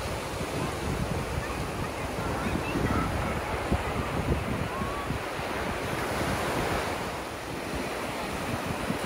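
Ocean surf washing onto a sand beach, a steady rushing hiss, with wind gusting against the microphone in low irregular rumbles.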